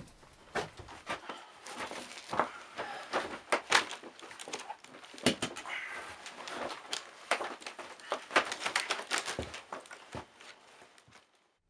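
Clothing and a blanket rustling and scraping, with soft irregular knocks, as a man sits down and lies down on a bedroll on a wooden floor.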